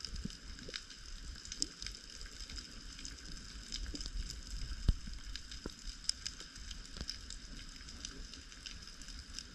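Underwater ambience picked up through a camera housing: a steady crackle of scattered sharp clicks over a low rumble.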